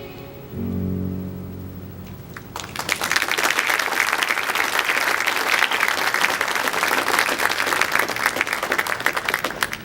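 The last low chord of a song's accompaniment rings and fades. Then a church congregation applauds steadily for about seven seconds, stopping abruptly just before the end.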